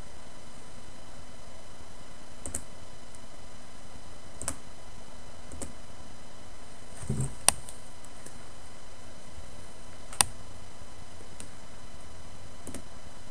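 Scattered clicks of a computer mouse, about seven in all a second or two apart, the sharpest about halfway through and again near the three-quarter mark, over a steady hiss with a faint hum. A low thump comes just before the loudest click.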